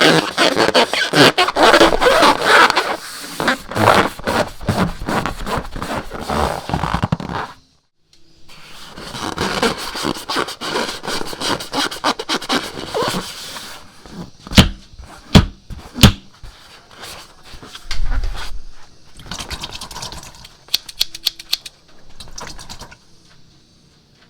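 Slime being kneaded and squished by hand, making dense wet crackling and clicking. The crackling breaks off briefly about a third of the way in. When it resumes there are a few sharp pops in the middle, and it grows quieter near the end.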